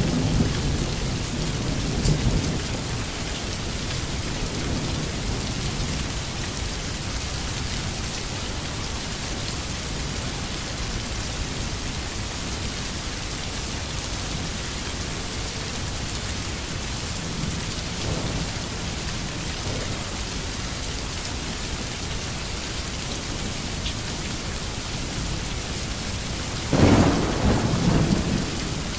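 Steady rain falling, with rolls of thunder: a low rumble in the first couple of seconds, a fainter one about two-thirds of the way through, and a sudden louder rumble near the end.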